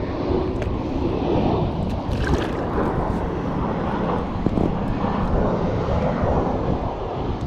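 Strong wind buffeting the microphone: a steady, dense rumbling roar.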